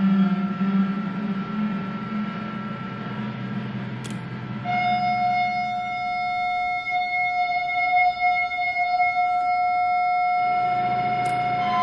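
No-input mixing feedback from a Mackie 1402-VLZ mixer patched back into itself. A low droning hum fades over the first few seconds. About five seconds in, a steady high feedback tone with overtones sets in and holds, with a low hum returning underneath near the end.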